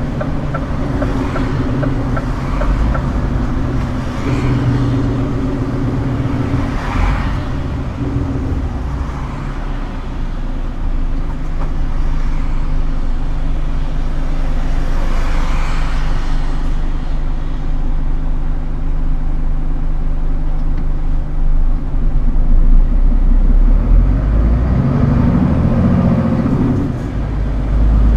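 Scania R410 truck's diesel engine running, its pitch stepping down and up a few times. Two short rushes of noise come through about seven and fifteen seconds in.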